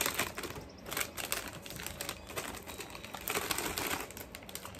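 A plastic-foil Doritos chip bag being opened and handled, crinkling and crackling in several short spells.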